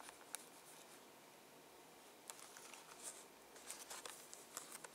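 Faint crinkles and light taps of a clear plastic blister pack being handled and turned over in the hands, a few scattered ones, more of them in the second half.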